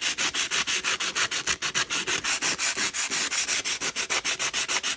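Hand-held 150-grit sandpaper scraping back and forth over the chipped edge of a glazed red earthenware plate in quick, even strokes, about eight a second. It is smoothing off the sharp parts of the chip.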